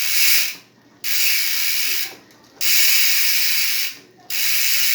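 Crimson Claw 3S bicycle hub freewheeling, its pawls clicking over the ratchet so fast that they make a loud, high-pitched buzz. The buzz cuts out briefly three times, about a second in, a little past two seconds and near four seconds, then picks up again.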